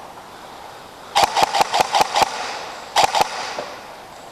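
Airsoft gun firing quick single shots, about five a second: a string of about six, then about three more a second later. The shots echo in the room.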